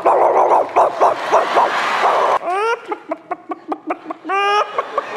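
A girl imitating a dog with her voice: a rough, rapid run of barking for about two and a half seconds, then a string of short, high yips and whines, some sliding upward in pitch.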